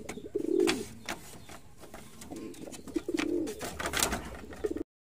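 Racing pigeons cooing in the loft: three low, throaty coos with scattered sharp clicks between them. The sound cuts off suddenly just before the end.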